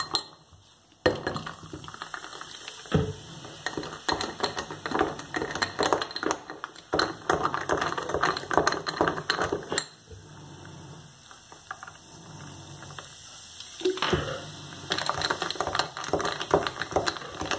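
Metal spoon stirring ice cubes and soda in a tall glass: rapid clinking and rattling of spoon against glass and ice. The stirring starts about a second in and eases off for a few seconds around the middle.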